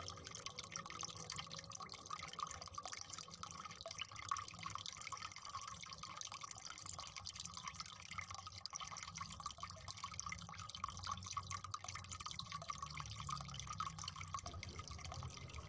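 Faint wet dripping and handling sounds from water-swollen grow-in-water toy sea animals being squeezed and lifted out of a glass bowl. There are many small drips and ticks, with no speech.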